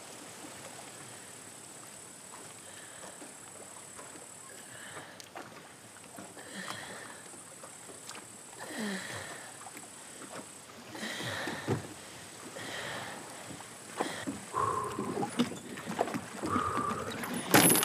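Rowboat being rowed: oar strokes about every two seconds, starting some six seconds in and growing louder near the end as the boat draws close.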